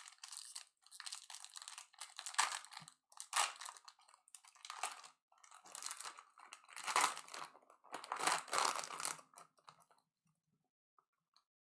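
Baseball card pack packaging being torn open and crinkled, in irregular crackling bursts that stop about three-quarters of the way through.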